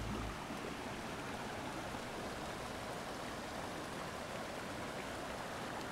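Shallow creek water rushing over rocks in a riffle, a steady even wash.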